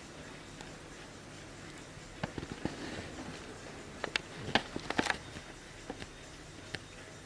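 Irregular light clicks and knocks in short clusters, a few about two seconds in and a denser run around four to five seconds in, over a faint steady background.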